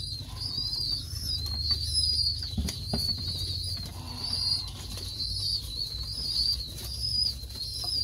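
Young domestic pigeons (squabs) flapping their wings on a wooden loft ledge, over continuous high-pitched chirping that repeats about twice a second. A low steady hum runs underneath, with a knock about three seconds in.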